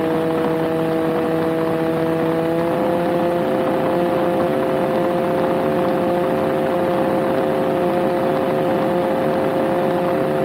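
Kitfox light aircraft's engine and propeller running with a steady drone, heard inside the cockpit. The pitch shifts slightly about three seconds in.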